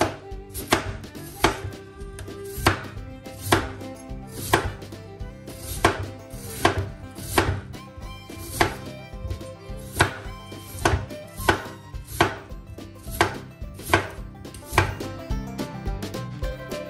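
A chef's knife slicing peeled raw potatoes on a wooden cutting board, the blade knocking on the board about once a second. The cuts stop shortly before the end.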